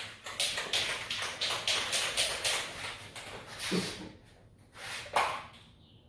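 Aerosol spray paint can being shaken, its mixing ball rattling at about five strokes a second for nearly four seconds. A couple of separate knocks follow near the end.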